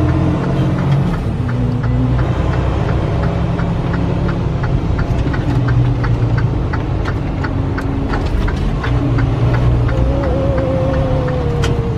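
Steady low engine and road rumble inside a moving vehicle's cab, with a faint regular ticking about three times a second.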